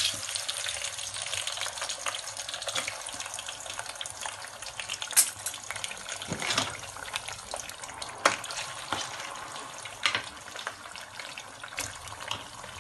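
Thinly sliced potatoes frying in a saucepan of hot oil: a steady sizzle, fizzling up nicely, with scattered sharp pops. It starts loudest as the potatoes are tipped in.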